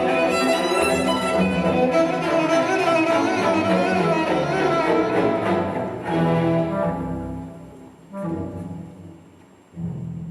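Classical orchestral music with bowed strings played back through Focal Sopra N°1 hi-fi loudspeakers. After about six seconds the dense passage gives way to three separate chords, each ringing out and fading.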